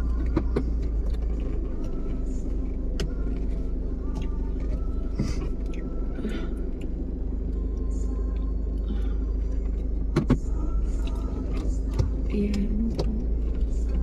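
Steady low rumble of a car's engine and road noise heard inside the cabin while driving, with a few sharp clicks or knocks scattered through it, the loudest a little after ten seconds in.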